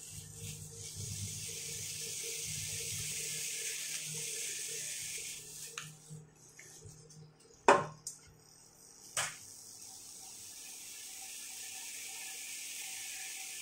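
Chopped chicken sizzling in a hot wok as a spatula breaks it up. The sizzle fades out a little before the middle and comes back later. Two sharp knocks come about two thirds of the way in, the first the loudest.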